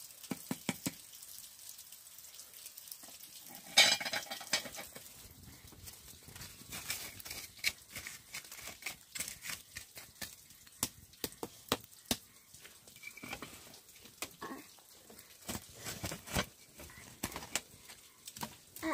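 Irregular light clicks and knocks of utensils against dishes, with a louder clatter about four seconds in.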